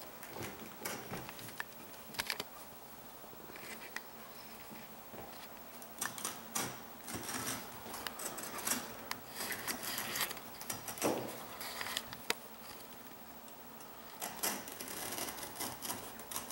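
Carpet being worked by hand at its edge with carpet tools: scattered scrapes, rustles and small clicks, getting busier near the end.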